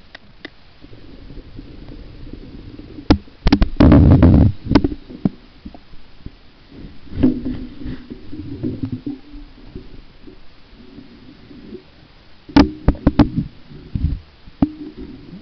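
Muffled knocks, rubbing and water noise from a camera being handled and carried underwater. The loudest clusters come about four seconds in and again near the end, over a low rumble.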